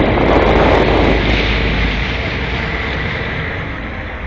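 Wind buffeting the microphone over the steady low hum of a passenger boat's engine under way; the wind noise is heaviest in the first second or so, then eases.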